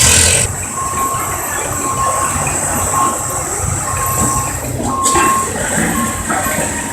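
A heavy engine running steadily at the pulling track, with an evenly repeating high beep about once a second, like a reverse alarm. A short burst of noise comes at the start and another about five seconds in.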